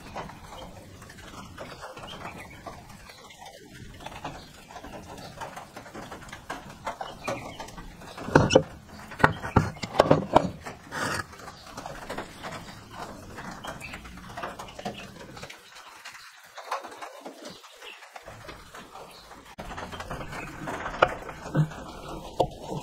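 Cast-iron drill press vise being handled on a wooden stool top: a cluster of knocks about eight to eleven seconds in as it is turned over and set down, and a few more knocks near the end as its screw handle is taken hold of.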